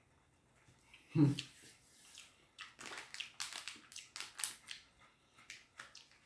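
A person eating a packaged sponge-cake snack close to the microphone: a brief hum-like vocal sound about a second in, then a few seconds of irregular crackling clicks.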